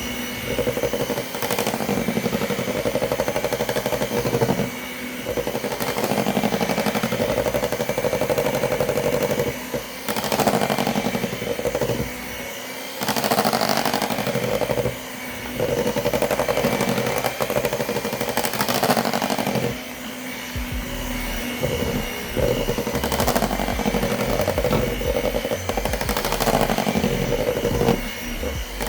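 Electric mixer motor running through thick chocolate cake batter, a steady whine with the mixer briefly easing off or pausing several times.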